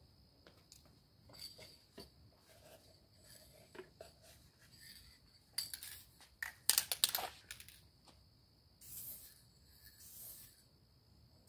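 Aerosol can of clear satin lacquer spraying in several short bursts of hiss, the loudest two a little past the middle and two softer ones near the end, with small handling clicks and rustles between them.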